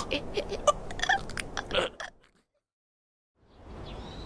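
Irregular wet clicks and crunches for about two seconds, then a sudden cut to silence. Near the end comes a faint outdoor background with high bird chirps.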